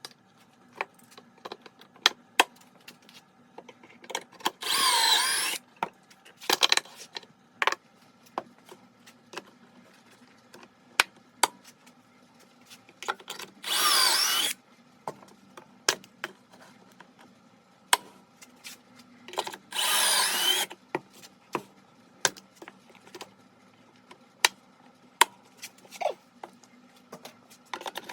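Power drill running in three short bursts of about a second each, with a whine that sweeps in pitch, among frequent sharp taps and knocks of wood being handled.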